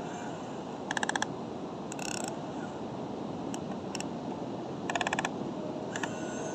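Excavator running steadily, with two short bursts of rapid clicking, about a second in and again about five seconds in.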